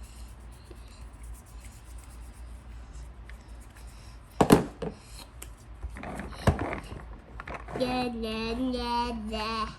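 Plastic toy pieces and Play-Doh being handled: faint rustling, then two sharp clacks about halfway through, the first the loudest. Near the end a voice holds one long, nearly steady note for about two seconds.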